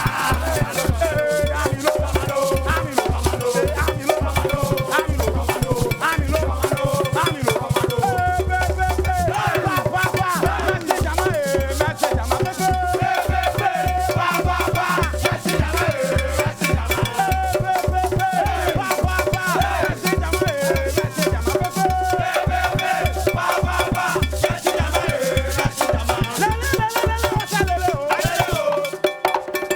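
Up-tempo band music with a steady bass beat about twice a second, busy shaker percussion and a melodic lead line; the bass drops out near the end.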